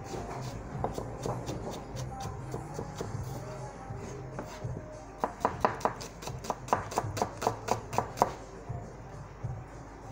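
Kitchen knife chopping red onions on a cutting board: a steady run of sharp knocks, then a burst of louder, quicker strokes at about five a second from about halfway to near the end.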